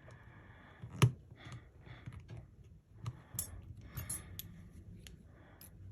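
Light scraping and small sharp clicks from a smartphone's internal parts and repair tools being handled during reassembly. The sharpest click comes about a second in, with softer ones around three and four seconds in.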